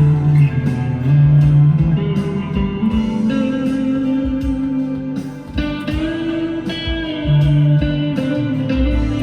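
PRS SE 245 electric guitar with brass saddles, played on an amp's clean channel with reverb and delay: plucked notes ring on and overlap, with a few short pitch bends.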